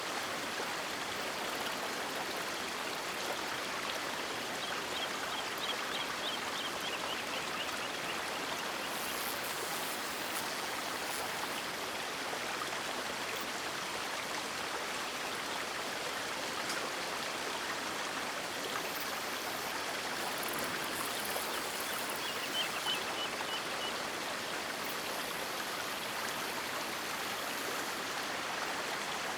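River water flowing in a steady, even rush. Twice, a faint high trill rises briefly above it.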